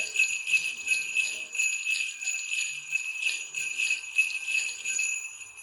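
Handheld sleigh bells, a cluster of metal bells on a handle, being rolled: a continuous fast jingle of many tiny strikes over a steady high ring.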